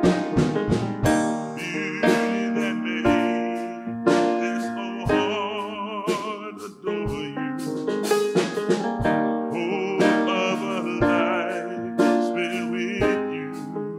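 Live song with a grand piano and a drum kit, a man singing over them; the bass drum keeps a steady beat about every two seconds.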